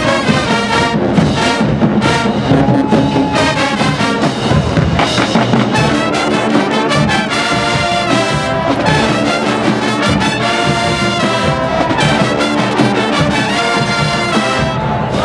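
Marching band playing: trumpets and trombones over drums, choppy and rhythmic at first, then moving into long held brass chords about halfway through.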